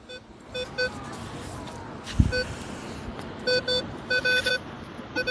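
Minelab Equinox 800 metal detector giving repeated short beeps at one steady pitch as the coil sweeps back and forth over a buried metal target in beach sand, in quick clusters of two or three. A single dull thump about two seconds in.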